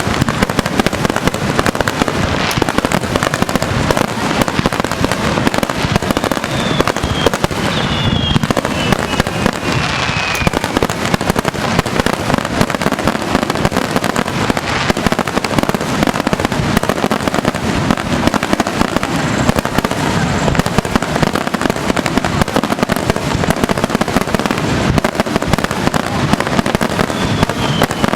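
Fireworks going off in a dense, continuous barrage of bangs and crackling, with a few falling whistles about a third of the way in and again near the end.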